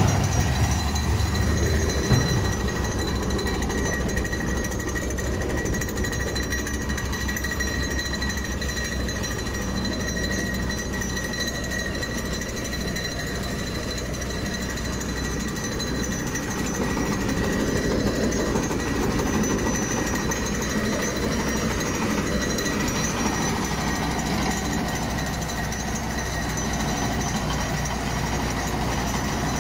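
Bomag single-drum vibratory roller compactor working on soil: the diesel engine runs under load while the vibrating drum adds a fast, steady pulsing rattle, with a faint high whine.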